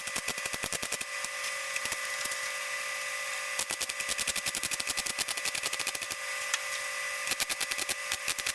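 Welding arc crackling in quick, regular pulses on sheet steel as a patch panel is welded into a car's rear lower quarter panel. About a second in it eases to a steady hiss for a couple of seconds, then crackles again.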